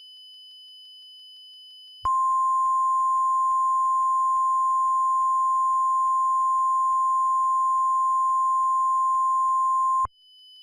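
Mock NOAA Weather Radio 1050 Hz warning alert tone: one loud, steady, pure tone that starts about two seconds in, holds for about eight seconds and cuts off abruptly. It is flanked before and after by a faint high-pitched steady tone.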